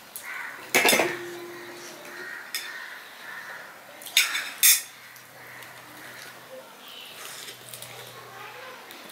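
Steel spoon clinking against stainless-steel plates. A loud clink about a second in rings on briefly, then two more clinks come close together around four and a half seconds in.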